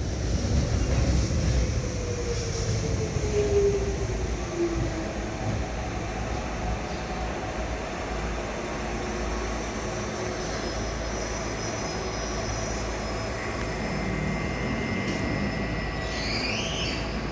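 Docklands Light Railway train running on the track with a steady rumble. A motor whine falls in pitch during the first few seconds, and a high wheel squeal rises near the end.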